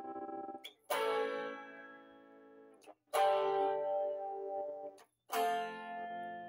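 Les Paul-style electric guitar playing three chords about two seconds apart. Each chord is struck, left to ring and fade, then cut off just before the next.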